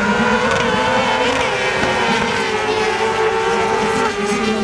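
Engines of several kart-cross racing karts running at high revs in a steady drone, the pitch dipping and rising slightly with the throttle.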